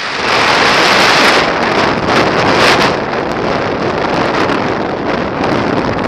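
Wind buffeting the camera microphone during paraglider flight: a loud, steady rush that gusts louder for the first few seconds.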